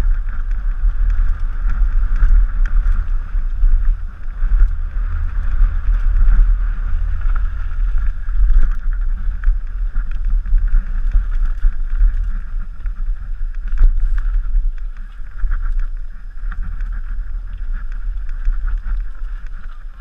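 Downhill mountain bike descending a rough dirt trail, heard from a camera on the rider: a loud, uneven rumble of wind and tyres over the ground with a hiss above it, and several sharp knocks from the bike as it hits bumps.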